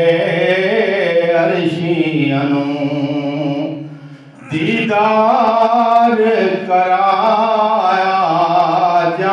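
A man singing a Punjabi naat unaccompanied through a microphone, holding long wavering melodic lines, with a short pause for breath about four seconds in.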